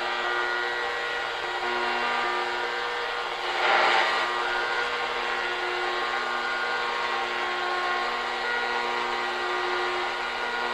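Shortwave radio hissing with static, several steady tones running through the hiss. A brief louder rush of static comes about three and a half seconds in.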